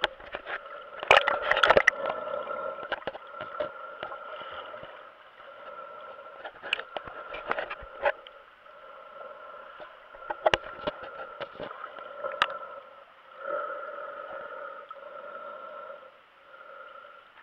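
Muffled underwater sound picked up by a GoPro in its waterproof housing: a wavering hum that swells and fades, broken by sharp clicks and knocks of water and handling against the case, loudest about a second or two in.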